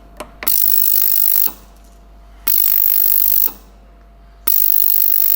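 Toolpro 2.5 L ultrasonic parts cleaner running its degas cycle: the transducers switch on for about a second, then off for a second, three times, each time giving a harsh, loud buzzing hiss from the bath.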